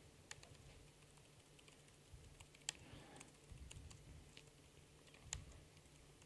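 Faint, irregular keystrokes on a computer keyboard as code is typed, over a faint low hum.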